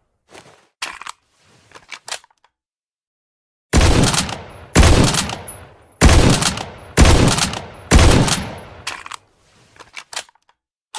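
Sniper rifle sound effect: a few light mechanical clicks, then five loud shots about a second apart, each trailing off in a fading echo, followed by more faint clicks near the end.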